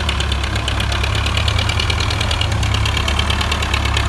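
Belarus MTZ-50 tractor's four-cylinder diesel engine running steadily with a rapid, even clatter, pulling a loaded double-axle sugarcane trailer.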